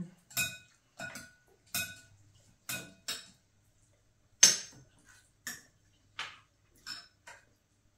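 Chopsticks and eating utensils clinking against glass bowls during a meal: about ten sharp, irregular clinks with a short ring, the loudest about halfway through.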